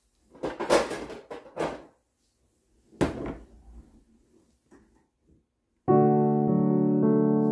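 Desk-handling noises: rustling, then a knock about three seconds in as a roll of blue painter's tape is set down on the glass desktop. About six seconds in, background music starts with held keyboard chords.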